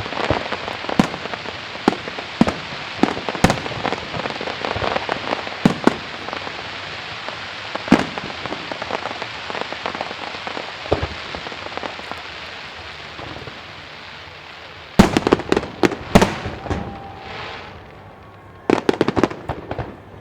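Aerial fireworks: a dense crackling, with scattered sharp pops, slowly dies away. Then a quick cluster of loud shell bursts comes about fifteen seconds in, and another about nineteen seconds in.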